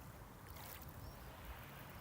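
Small sea waves lapping gently at the shoreline, with a brief wash of water about half a second in.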